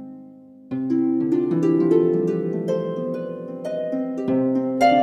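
Background music of plucked-string notes in a flowing melody with chords; it dies down at the start, then comes back in fully less than a second in.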